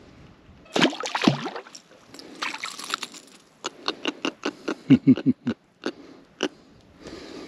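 Small trevally splashing at the surface on a popper, then grunting in a quick run of short pulses, about four a second.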